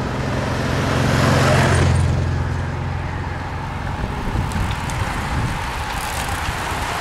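Motorcycle engine running as the bike passes close, loudest about a second and a half in and fading out by about three seconds. Then an even rushing noise as the bunch of racing bicycles goes by.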